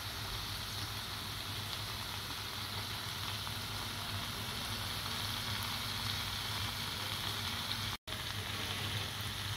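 Lamb chops and brisket sizzling steadily in oil and reduced juices in a tawa at the end of cooking, with a low steady hum underneath. The sound cuts out for an instant about eight seconds in.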